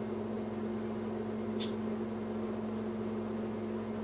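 Steady electrical hum with a faint hiss, holding one pitch at an even level, typical of a kitchen appliance or fan running. A single faint click comes about a second and a half in.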